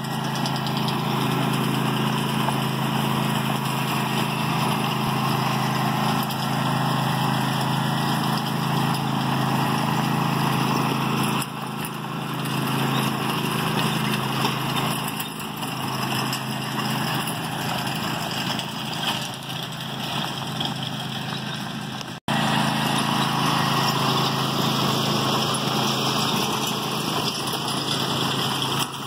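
Riding lawn mower engine running steadily as it tows a train of ride-on toy cars and a lawn sweeper, over a steady hiss. It is quieter for a stretch in the middle and cuts out for an instant about two-thirds through.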